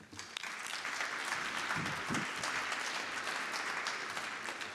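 Audience applauding in a large lecture hall, rising just after the start and fading near the end.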